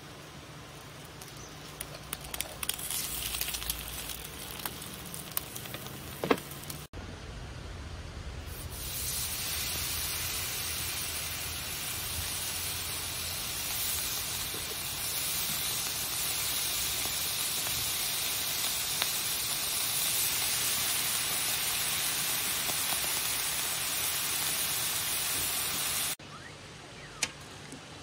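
Raw bacon strips sizzling on a hot round griddle pan: a steady hiss that begins about a third of the way in and cuts off abruptly near the end. Before it, a few light clicks.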